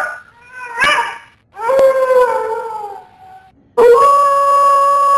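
Howling in three separate calls: a short one about a second in, a longer one from about one and a half seconds that slides gently down in pitch, and a long, steady howl that starts suddenly at about four seconds.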